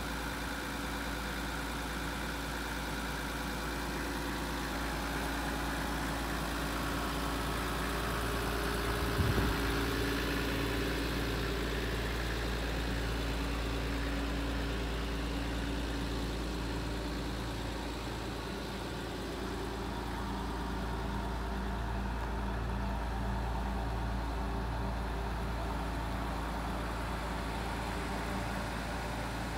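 Nissan Civilian minibus's TD42 4.2-litre inline-six diesel idling steadily, with an even low pulsing hum. There is one brief knock about nine seconds in.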